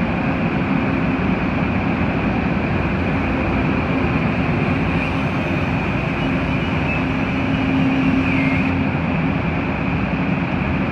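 A machine running steadily, a continuous loud mechanical noise with a constant low hum and a thin high whine.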